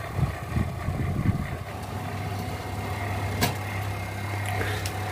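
Convection oven fan running with a steady low hum, with a single sharp click about three and a half seconds in.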